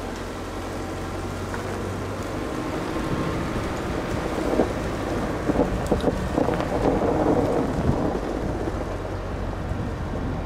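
A steady low rumble with a few seconds of dense crackling and crunching of ice in the middle, sharp clicks among it.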